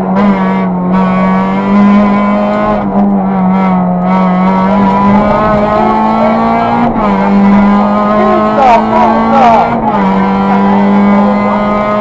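Peugeot 206 RC rally car's four-cylinder engine at high revs inside the cabin, pulling hard through the stage. Its note steps down twice, about seven and ten seconds in, and climbs again in between.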